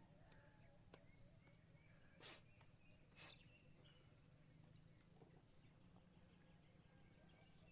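Near silence with a faint, steady, high-pitched insect chorus. Two brief rustling bursts come about two and three seconds in.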